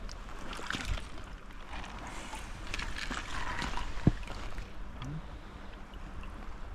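Water splashing and sloshing in two spells, with a sharp knock about four seconds in.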